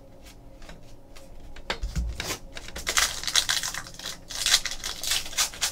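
Trading cards being flicked through one by one, a run of light clicks. From about three seconds in, the shiny wrapper of a Panini Donruss basketball pack crinkles and tears as it is opened.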